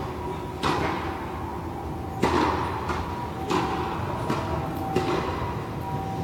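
Tennis rally: a ball struck by rackets and bouncing on a hard court, sharp pops about a second or so apart, each followed by a brief echo from the indoor hall.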